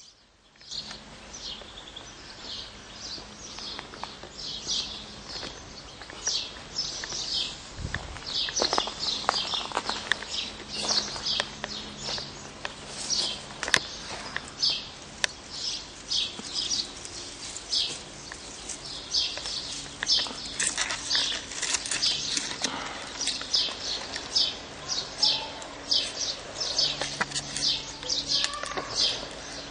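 Young European goldfinches chirping: short, high calls repeated several times a second without a break. A few clicks and rustles come through in the middle.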